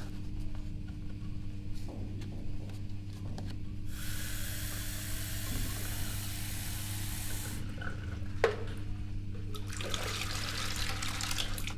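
Water running from a wall tap into a plastic jug held under it at a sink: a steady splashing hiss that starts about four seconds in and stops abruptly, then starts again near the end. A steady low hum runs underneath, with a single sharp click between the two spells.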